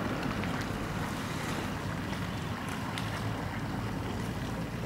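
Steady rushing wind on the microphone over water sloshing around people wading waist-deep in a pond, with faint scattered small splashes.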